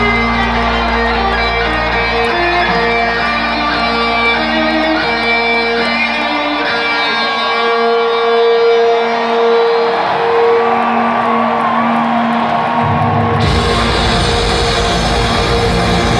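Live rock music played through an arena PA: a lead electric guitar rings out held notes with bends over a fading chord, then the full band, with drums and cymbals, crashes back in about three-quarters of the way through.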